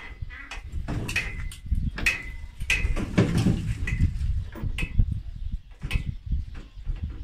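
Home-made steel car rotisserie creaking and squeaking at its pivots as a bare car body shell is turned on it by hand. About seven short squeaks come roughly a second apart, with a longer groaning squeal partway through.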